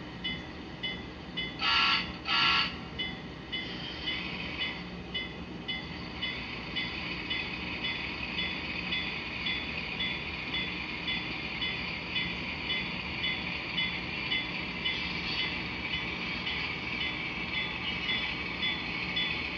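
Sound-equipped model of Union Pacific gas-turbine locomotive #18 giving two short horn blasts about two seconds in. Its bell then rings steadily over the turbine's running sound, which grows louder in the last few seconds as the locomotive pulls away.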